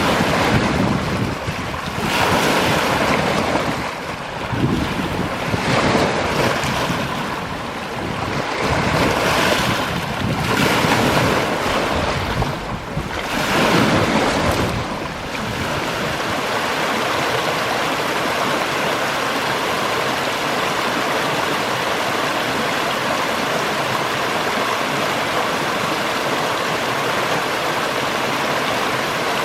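Waves washing onto a beach, surging every couple of seconds, with wind buffeting the microphone. About halfway through it changes to the steady, even rush of flowing water from a river or waterfall.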